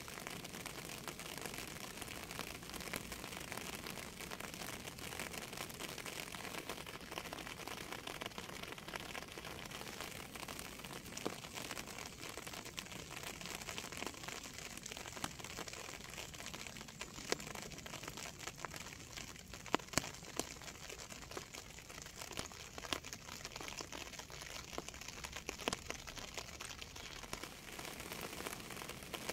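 Steady rain falling, a dense patter of drops ticking on a surface. A few sharper single drips stand out in the second half.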